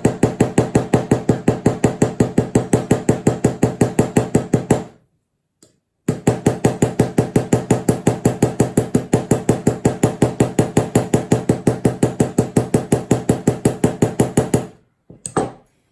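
Ball peen hammer rapidly and evenly tapping a straight razor's pivot pin, about six light taps a second, peening the pin head into a mushroom to tighten the blade's pivot. The tapping pauses for about a second after five seconds, then resumes for about nine seconds before a couple of last fainter taps.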